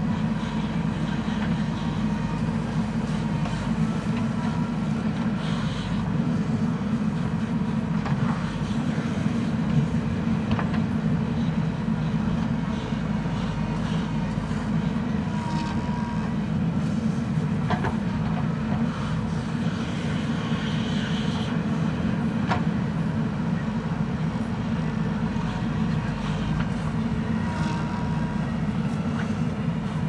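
JCB 3DX backhoe loader's diesel engine running steadily under load as the backhoe arm digs, with a few short sharp knocks from the digging gear.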